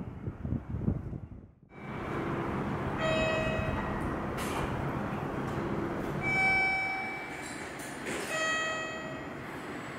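Station concourse ambience with electronic chime tones that sound three times, each held about a second. Before it, a brief stretch of outdoor street noise ends abruptly.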